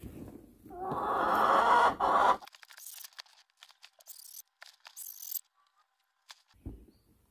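A hen scratching and shuffling in the wood-shaving bedding of a nest box as she settles to lay: a loud scratchy rustle for about two seconds, then lighter scattered rustles and clicks. A soft low thump comes near the end.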